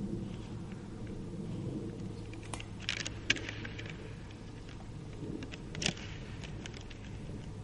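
Fallow deer bucks' antlers clacking and rattling together as they lock and push, with several sharp clacks, the loudest about three seconds in and again near six seconds. A steady low hum runs underneath.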